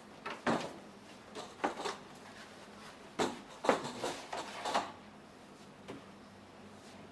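A run of short, light knocks and clatters, like things being handled, drawers or doors moved. They come in the first five seconds, and the loudest falls a little past three and a half seconds.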